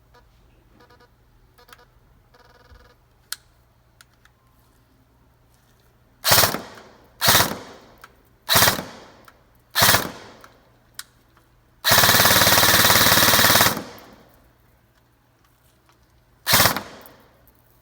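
E&C M4 airsoft electric rifle firing: four single shots about a second apart, then a full-auto burst of nearly two seconds, then one more single shot near the end. Faint electronic beeps come in the first few seconds.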